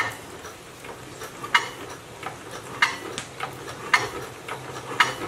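Sharp metallic clicks, about one a second, as a single-cylinder diesel engine is oiled by hand before its test run.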